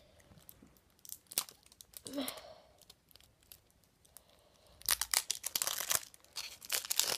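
Toxic Waste sour sweet packaging being worked open by hand: scattered clicks and crinkles, then dense tearing and crinkling over the last two seconds or so.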